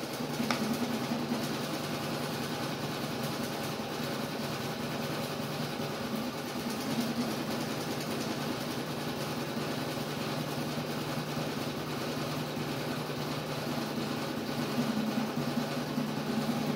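Steady low mechanical hum that does not change.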